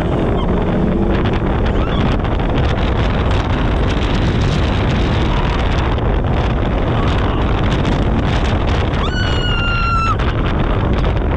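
Polaris RZR 1000 side-by-side driving hard over a dirt track: steady engine and drivetrain noise heavily mixed with wind buffeting the open-cab microphone. About nine seconds in, the passenger lets out a short, high-pitched yell.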